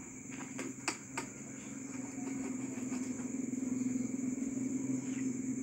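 Steady low hum of a running engine, growing louder toward the middle and easing off near the end, over the steady high trill of crickets. A few short knocks sound about a second in.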